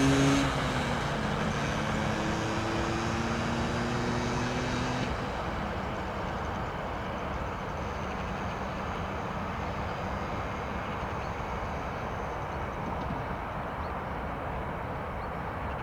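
Freight train passing behind an ÖBB class 1144 electric locomotive. The locomotive's hum dips in pitch as it goes by and fades within about five seconds, then the wagons roll past with a steady rolling noise.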